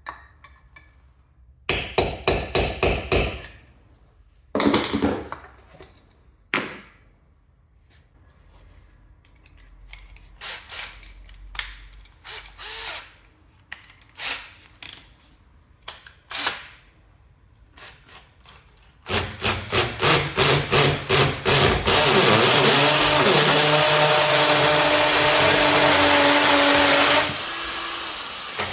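Power drill run in short bursts with knocks and handling clatter in between, then pulsed rapidly and held on for about five seconds, easing off near the end.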